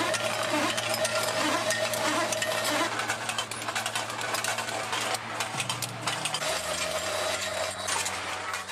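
Machinery running with a steady hum, overlaid by a dense, irregular clatter of small metal clicks.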